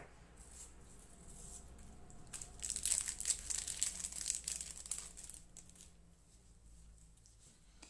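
Shiny foil booster-pack wrapper crinkling as the cards are worked out of the freshly torn-open pack, the rustling loudest a few seconds in and fading near the end.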